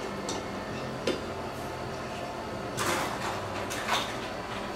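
A serving spoon scraping and knocking in a rice cooker's inner pot as cooked rice is scooped onto a plate: a sharp click about a second in, then two short scrapes near the end, over a steady low hum.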